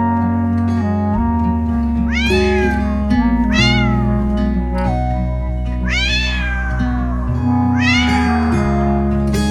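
A cat meowing four times, the third meow longest and falling in pitch at the end, over plucked acoustic guitar background music.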